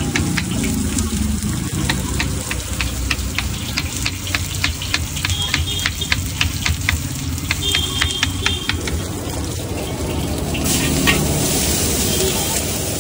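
Knife chopping green capsicum on a cutting board in quick, even strokes, over a wok of vegetables sizzling. Near the end the chopping stops and the sizzle grows louder as the wok is stirred with a metal spatula.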